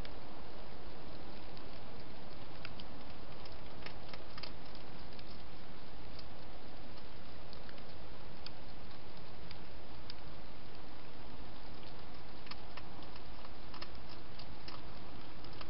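Wild hedgehog eating from a dish inside a plastic feeding box: irregular small crunching clicks in two spells, about three seconds in and again about twelve seconds in, over a steady hiss.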